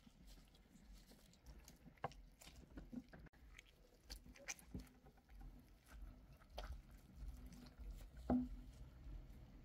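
Knife and carving fork working through a fatty smoked beef short rib on a wooden cutting board: quiet, scattered clicks and soft knocks as the meat is cut and pulled apart, the sharpest one a little after eight seconds in.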